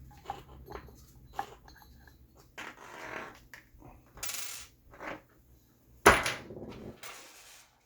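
Small clicks, taps and short scrapes of hand tools and airsoft rifle parts being worked, as a pin is tapped out and the receiver is handled, with one sharp knock about six seconds in.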